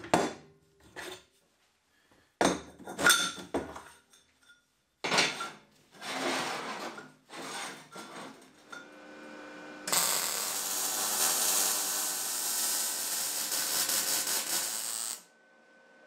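Steel square-tube parts clanking and scraping as they are handled and laid on a steel welding table. About ten seconds in, a welding arc crackles steadily for about five seconds and then cuts off suddenly.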